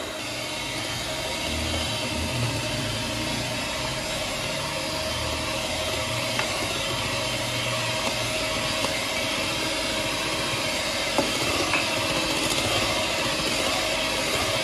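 Electric hand mixer running steadily, its beaters whisking chilled custard with a cup of milk added to loosen it.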